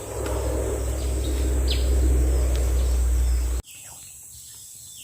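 Forest ambience of insects and bird calls, including one quick falling chirp, under a loud low rumble that cuts off abruptly about three and a half seconds in, leaving the quieter insect and bird sounds.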